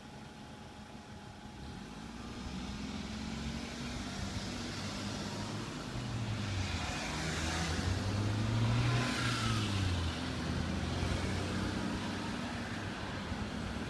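Cars driving past on a road, engine hum and tyre noise swelling to a peak about eight to ten seconds in as vehicles pass close by, then easing off.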